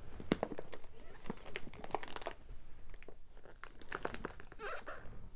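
Clear plastic storage envelopes full of craft paper and embellishments crinkling and rustling as they are handled and shifted, with irregular crackles.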